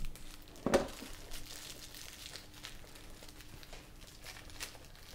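Packaging crinkling and rustling as firecracker packs are handled, with one sharp click about three quarters of a second in.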